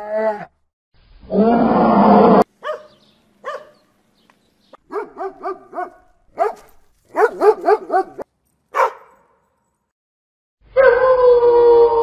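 A loud drawn-out animal call that stops abruptly, then runs of short yipping barks and howls from a young dog, their pitch bending up and down. About a second before the end a steady held tone begins, falling slowly in pitch.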